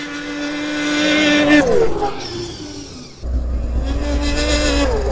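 Two-stroke Polaris snowmobile engine held at a steady pitch under throttle, then dropping in pitch as the throttle is let off about one and a half seconds in. It pulls again at a steady pitch from about three seconds in, with a low rumble underneath, and drops again near the end.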